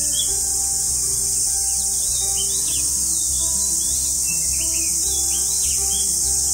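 Steady, high-pitched chorus of insects at dusk, with a scatter of short chirping bird calls through it.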